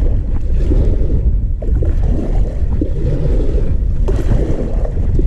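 Strong wind blowing across the microphone as a loud, steady low rumble, with water moving and lapping around an inflatable kayak.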